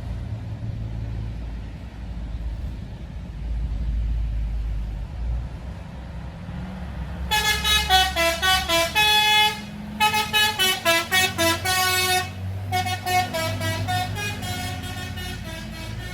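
A bus's basuri (telolet) multi-tone horn playing a quick tune of short stepped notes, starting about seven seconds in, loudest until about twelve seconds and carrying on more softly after. Before it, the bus's engine runs with a steady low rumble.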